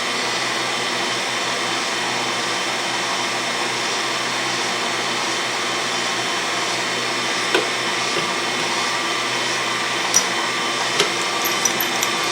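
Autobox 8x16 mini lathe running steadily, its motor and gear train giving an even whine, with a few light clicks in the second half.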